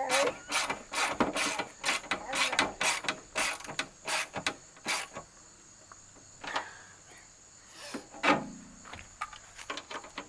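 Hand ratchet clicking in quick strokes as the fender's bolts and nuts are tightened. The clicks thin out about halfway, and there is a single louder knock near the end.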